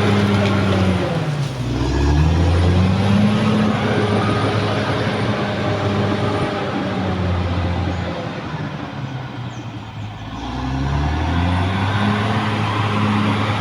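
Caterpillar D6R XL bulldozer's diesel engine running under load. Its revs dip and pick up again about two seconds in, then sag more slowly and recover near the end, as the load on the blade changes.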